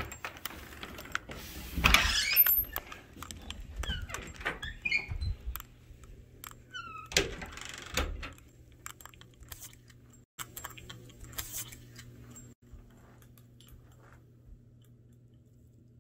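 Door and handling noises: a burst of clicks and rattles, loudest about two seconds in, with a few short squeaks in the first half. After that it goes quiet except for a faint low steady hum.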